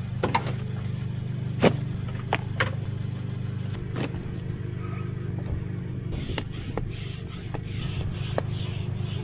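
A vehicle engine running steadily with a low hum, with several sharp clicks or knocks over it.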